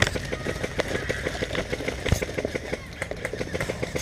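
Airsoft guns firing: a fast, irregular clatter of sharp clicks, several a second.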